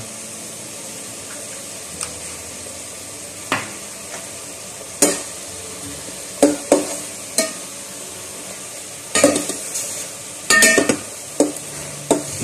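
Chicken pieces sizzling in an aluminium pot while a ladle stirs and turns them. The ladle knocks sharply against the pot about ten times, mostly in the second half.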